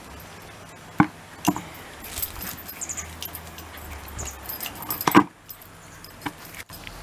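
Dog sounds from a Shiba Inu: two sharp, sudden sounds about a second in, scattered small clicks and rustles through the middle, and a louder sharp sound about five seconds in.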